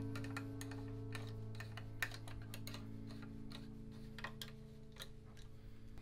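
Irregular small, sharp clicks and ticks of a hex driver and bolt being worked on a road bike's stem, the loudest about two seconds in, over a held, fading background-music chord.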